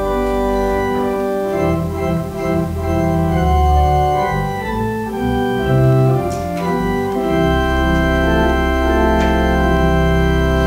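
Organ playing sustained chords over deep bass notes, moving through a few chord changes and then holding one long chord from about seven seconds in.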